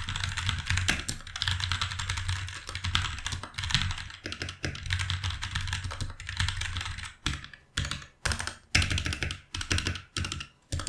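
Typing on a Sades Kunai 65% mechanical keyboard with silent yellow switches. A fast, continuous run of keystrokes gives way about two-thirds of the way in to short bursts with brief pauses. The keypresses sound very soft and the body does not sound hollow.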